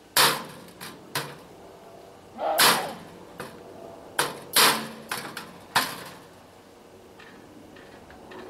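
About ten sharp, irregular knocks and clatters of hard parts being handled and set against a sheet-metal box on a garden wagon, some in quick pairs and one longer clatter, dying away after about six seconds.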